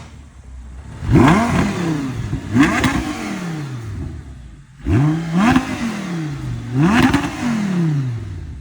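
Audi R8 engine being revved in four blips, each rising sharply and then falling back to idle.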